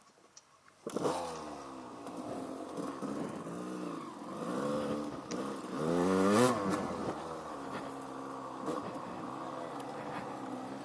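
Dirt bike engine running on a trail ride, the revs rising and falling with the throttle, with a sharp rev-up about six seconds in. It cuts in about a second after near silence.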